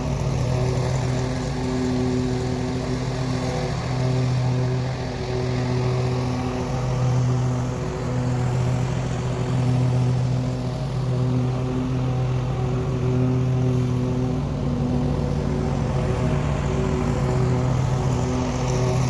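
Lawn mower engine running steadily at a constant speed, its tone swelling and easing slightly every second or two.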